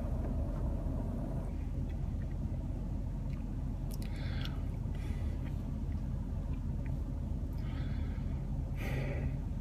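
A man crying quietly, with a few short sniffling breaths, over the low steady rumble inside a car.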